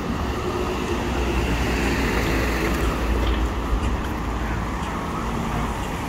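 City street traffic: a motor vehicle passing, its low rumble growing louder about a second in and easing off after about four seconds.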